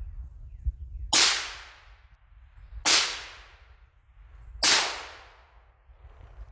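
Three rifle shots from a short-barrelled AR-15, spaced a little under two seconds apart. Each is a sharp crack followed by a fading echo.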